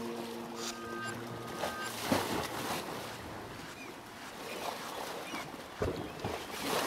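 A held musical chord dies away about half a second in. Irregular swells of water-like noise follow, with several louder surges and a few faint chirps.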